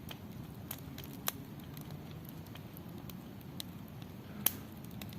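Wood campfire crackling: scattered sharp pops over a low, steady rush, the loudest pop about four and a half seconds in.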